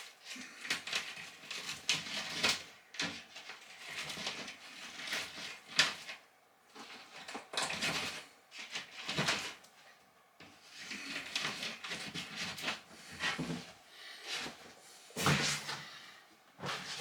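A run of irregular knocks, scrapes and rustles from hands-on building work on cabinetry, with a sharp knock about six seconds in.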